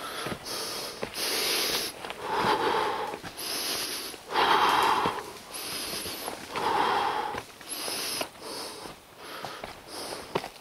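Heavy, labored breathing of a hiker climbing a steep trail, close to the microphone: a rushing in-and-out breath about every second, loudest around the middle. A few light footfalls on rock come between the breaths.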